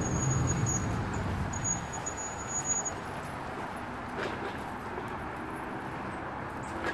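Parking-lot traffic noise: a car running close by for the first three seconds, then easing into a steady background hum of traffic.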